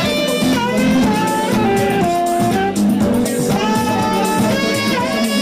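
House music from a DJ set: a steady beat with ticking hi-hats under a melodic lead of held notes that slide between pitches.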